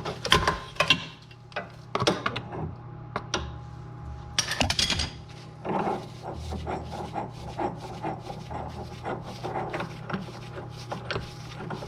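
Irregular metallic clicks, clinks and knocks of hand tools on the steering rack, with the clicks coming quicker in the second half: an inner tie rod removal tool being fitted and worked on the inner tie rod joint.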